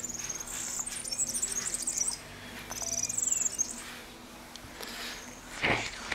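Birds chirping in several short, high trills, with a brief soft knock near the end.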